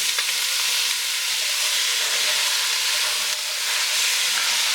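Chopped carrots, celery, onions and garlic sizzling steadily in hot avocado oil in a Dutch oven with browning chicken drumsticks, being stirred in.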